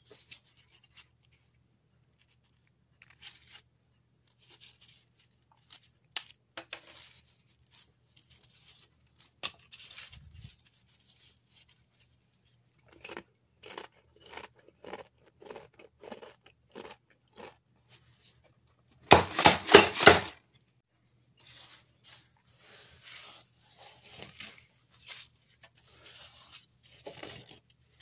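Pringles Original potato chips crackling and snapping as gloved hands break and crush them, in scattered irregular snaps that grow busier in the second half. About two-thirds of the way through comes one loud burst of crunching lasting about a second.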